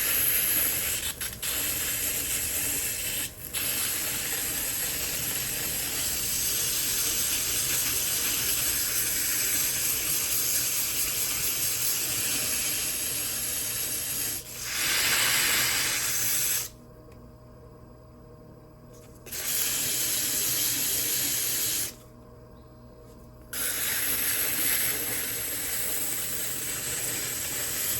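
Wet 120-grit diamond sanding pad scraping against the foot ring of a ceramic mug by hand, a steady gritty rasp that is loud. It stops twice for a couple of seconds past the middle. The rough, scratchy foot is being ground smooth.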